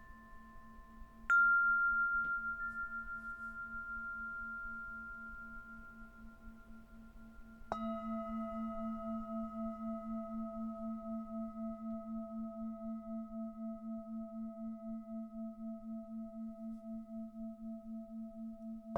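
Tibetan singing bowls struck and left to ring. A higher bowl is struck about a second in and fades slowly. A deeper bowl is struck near the middle and rings on with a steady pulsing waver.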